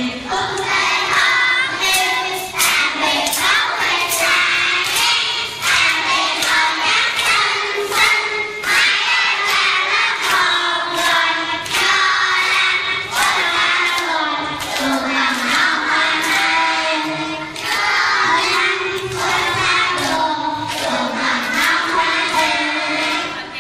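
A group of young children singing together in chorus, with hands clapping in a steady beat about twice a second.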